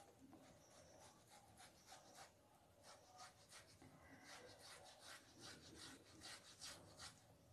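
Faint scraping strokes of a boiled potato rubbed across a flat metal hand grater, about three strokes a second, a little stronger in the second half.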